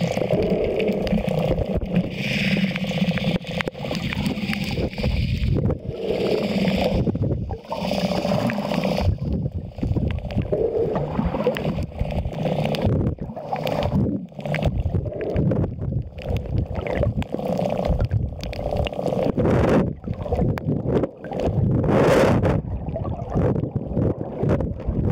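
Muffled underwater rushing and gurgling picked up by a camera in a waterproof housing as it moves through shallow water, with irregular knocks and thumps against the housing.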